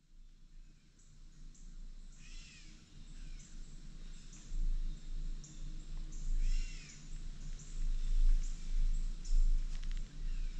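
Woodland birds calling: two drawn-out calls about four seconds apart, each rising then falling in pitch, over scattered short high chirps. A low rumble on the microphone grows louder through the second half.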